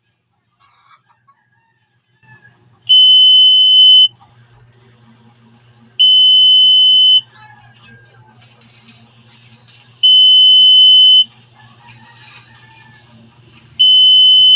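Buzzer of a motion-detector burglar alarm circuit beeping four times, each a loud steady high-pitched beep of a little over a second, three to four seconds apart: the alarm set off by its passive infrared motion sensor.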